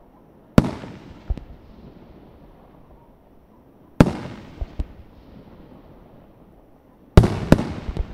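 Aerial firework shells bursting: three loud bangs about three seconds apart, each followed by one or two smaller bangs and an echo that trails away.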